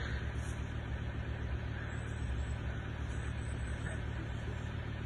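A steady low hum, like an engine idling.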